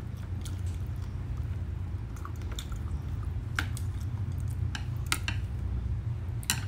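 Close-up eating sounds: chewing roast pork, with scattered sharp clicks of chopsticks and a metal spoon against a ceramic plate, over a steady low hum.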